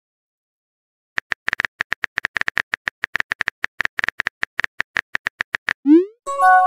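Phone-keyboard tap clicks from a texting-story app, rapid and even, as a text message is typed, starting about a second in. Near the end come a quick rising swoop and a chime, the app's message-sent sound.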